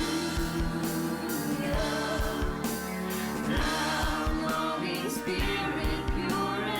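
Worship band music with singing over a steady drum beat.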